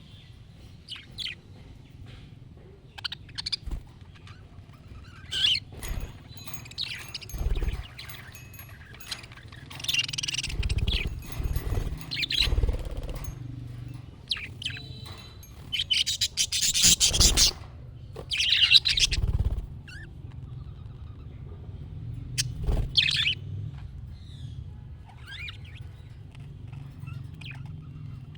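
Budgerigars chirping and warbling in irregular short bursts, with a few louder, harsher stretches of chatter. A steady low hum runs underneath.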